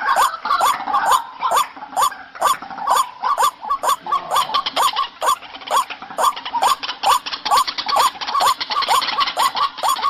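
White-breasted waterhen (ruak-ruak) calling: a long, steady series of short, repeated croaking notes, about three a second.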